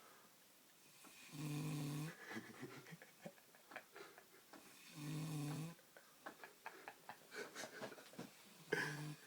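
A drunk young woman snoring in her sleep: three long, steady-pitched snores about three and a half seconds apart, with faint clicks between them.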